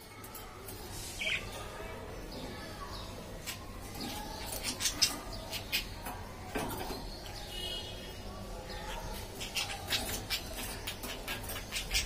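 Pet budgerigars chirping and chattering in a cage, with many sharp clicks and taps that become busier near the end.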